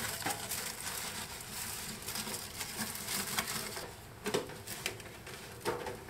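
Aluminium foil crinkling and rustling as hands press and tape it against the inside wall of a microwave, with many small crackles and taps.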